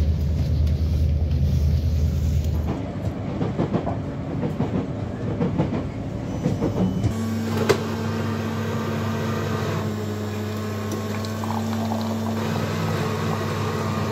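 Low rumble and hum of a vehicle interior in motion, its character changing abruptly about three seconds and seven seconds in, with a steady low drone in the second half.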